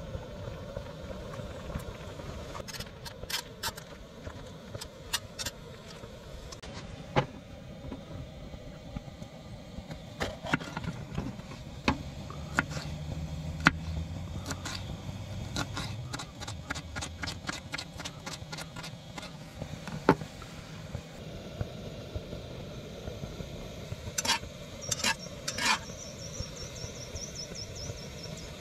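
Knife slicing a red bell pepper on a wooden cutting board, a string of sharp taps, over the steady hiss of a gas camp stove boiling water in a cast-iron skillet. A low hum passes about halfway. Near the end a few loud metal clinks ring out as tongs work the noodles in the skillet.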